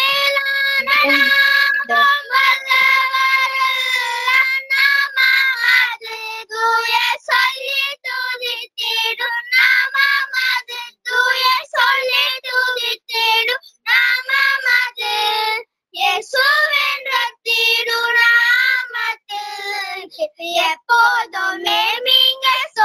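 A child singing in a high voice, with long held notes that waver in pitch, broken by short pauses.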